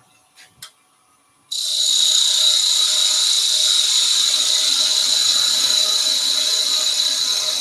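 Parting tool cutting into a small piece of wood spinning on a lathe. It starts suddenly about a second and a half in and carries on as a steady, high-pitched hiss with a whine in it.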